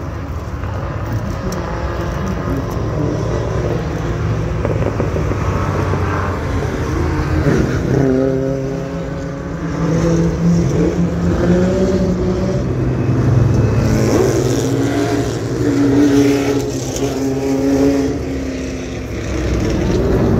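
Vintage racing cars driving past on the track, one engine after another, their notes rising and falling as each car passes.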